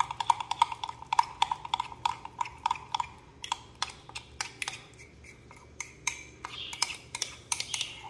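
Bird hand-feeding formula being stirred with water in a small container, the utensil clicking rapidly against the container's sides with a short ring on each tap. The clicks thin out in the middle and pick up again near the end.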